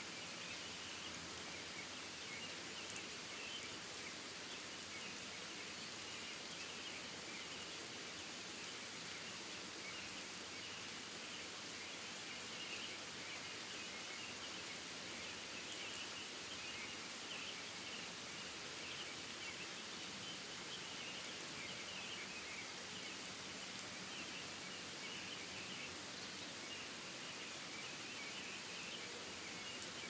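Forest rain ambience: a steady hiss of rain with faint, flickering high chirping running through it, and a couple of soft ticks.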